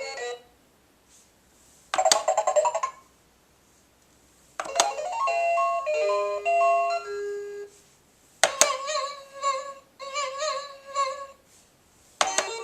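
VTech Winnie the Pooh Roll 'n Learn Tree toy playing short electronic jingles: three separate tunes, each starting with a click, with quiet gaps between.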